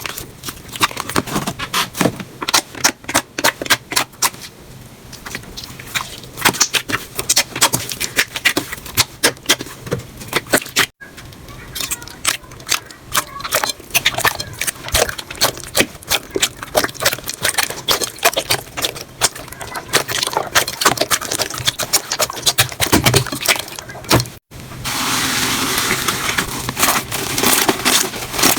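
Slime being squeezed, poked and stretched by hand: a stream of sticky clicks and pops. Sudden cuts come about eleven and twenty-four seconds in, and the last part is a denser crackle.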